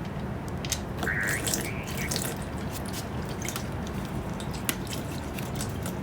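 Motor oil running and dripping from a 2022 Honda Grom's engine into a drain pan, with scattered light clicks of tools over a steady low hum.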